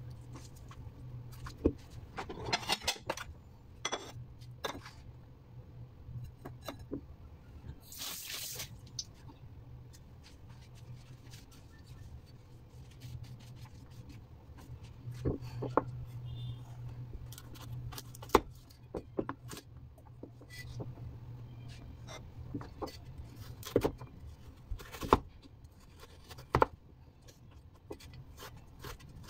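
Food and utensils being handled on a wooden cutting board: scattered light knocks and taps, with a short scrape or rustle about eight seconds in, over a low steady hum.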